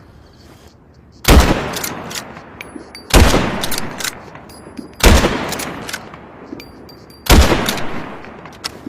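Remington 700 BDL bolt-action rifle fired four times, about two seconds apart, each shot followed by a long fading echo. Faint small clicks sound between the shots.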